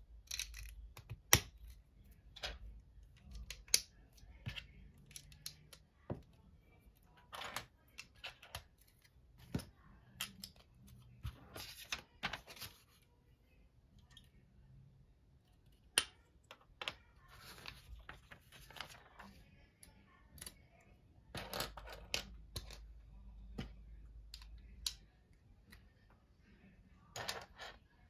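Plastic Lego bricks clicking and clattering on a tabletop as pieces are picked up, set down and pressed together. The clicks come singly at irregular moments, with a few short spells of denser shuffling.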